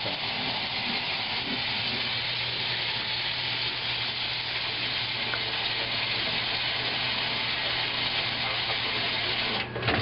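1955 Blackstone washing machine in operation: a steady hiss of water with an even, low motor hum beneath it.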